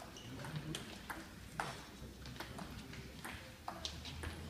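Table tennis rally: the celluloid ball clicking off the bats and the table in turn, about two sharp ticks a second.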